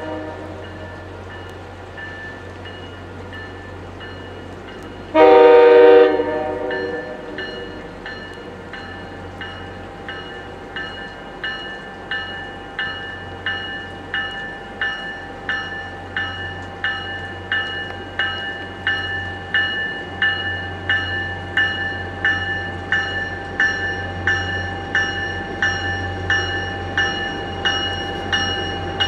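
MBTA F40PH-3C diesel locomotive approaching: one short horn blast about five seconds in, then its bell ringing about once a second, getting louder as the train draws near.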